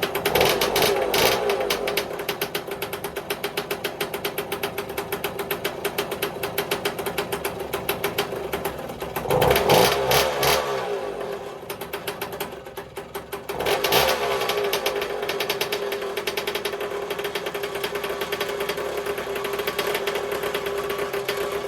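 Minarelli P4-70 two-stroke motorcycle engine running on its freshly rebuilt Dell'Orto carburettor, with rapid, even firing. It is revved up twice, about nine seconds in and again about fourteen seconds in, and sags low between the two revs.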